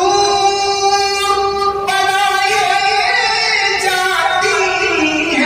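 A man reciting the Quran in the melodic, sung style of qira'at. He holds one long steady note for about two seconds, then the melody moves through ornamented turns.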